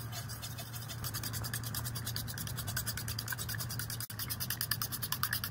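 Steel fork beating raw eggs in a bowl, the tines scraping and clicking against the bowl in fast, even strokes, with a brief pause about four seconds in.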